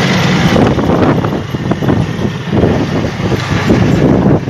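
Strong sandstorm wind buffeting the microphone in irregular gusts, a loud rushing rumble that rises and falls.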